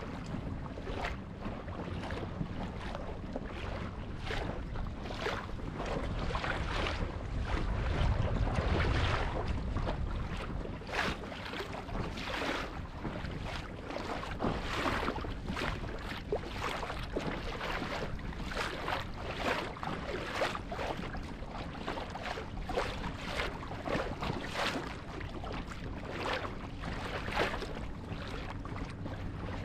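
Lake water splashing against the hull of a moving boat, a splash about every second over a steady rush, with a low rumble that swells about eight seconds in.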